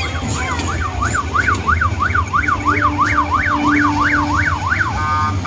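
A siren in a fast yelp, its pitch sweeping up and down about four times a second. Near the end it switches to a steady tone of several notes, over a steady low hum.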